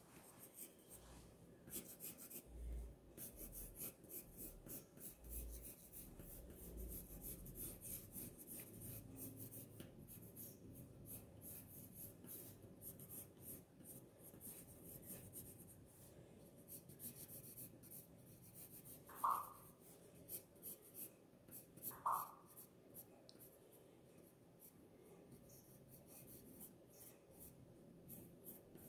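Faint scratching of a pencil sketching on paper, in many quick strokes. Two short pitched sounds, about three seconds apart, stand out about two-thirds of the way in.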